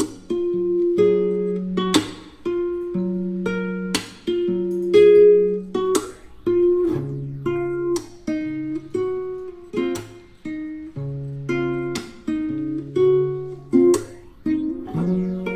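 Background music played on acoustic guitar: plucked notes and chords in a steady rhythm, with a stronger strummed stroke about every two seconds.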